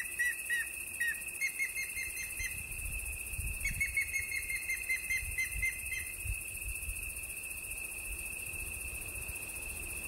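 Outdoor nature sounds: a steady high-pitched insect drone, with two runs of quick, evenly repeated chirps, about four or five a second, in the first six seconds. After the chirps stop, the drone goes on alone.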